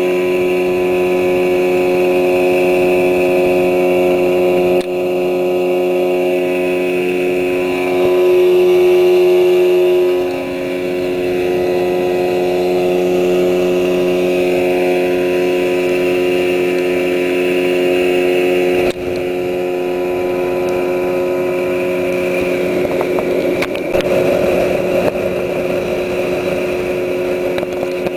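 Outboard motor running at a steady pitch, driving a small boat along at cruising speed. It gets briefly louder about eight seconds in.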